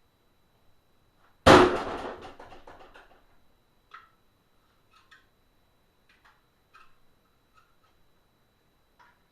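A sudden loud bang with a rattling clatter that dies away over about a second and a half, followed by a few faint ticks.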